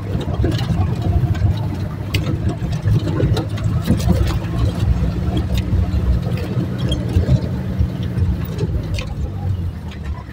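Jeep engine running under way, heard from inside the cab, with scattered knocks and rattles as it drives over a rough dirt road; the sound eases off near the end.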